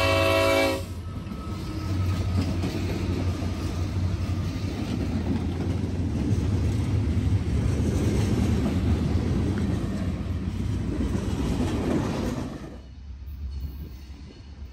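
Diesel locomotive air horn sounding, cut off under a second in, then a freight train rolling past with a steady rumble of wheels and diesel engines. About 13 s in the rumble drops away suddenly to a quieter low hum.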